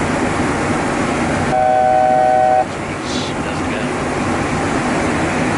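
Steady rush of airflow and engine noise in a Boeing 737-800 flight deck. About a second and a half in, a flat electronic tone of two or three notes sounds for about a second and then cuts off.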